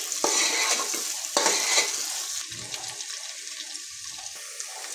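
Potato pieces frying in ghee in an aluminium pressure cooker over a high gas flame, sizzling steadily. A spatula scrapes and stirs through them twice in the first second and a half, then the sizzle goes on more quietly by itself.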